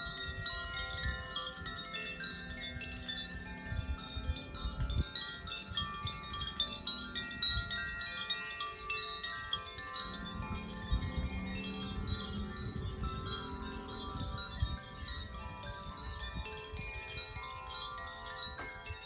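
Tuned hand-held wind chimes of the Koshi and Irohana kind, gently swung so that many clear notes ring and overlap continuously, with a low rumble underneath.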